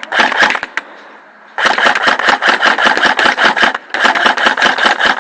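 Airsoft electric guns firing on full auto: a short burst at the start, then two long strings of rapid, evenly spaced shots separated by a brief pause.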